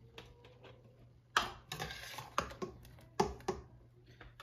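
Slotted spoon tapping and clinking against a canning funnel and jars as boiled pineapple chunks are dropped into the jars: a run of light irregular clicks, with a sharper knock about a second and a half in.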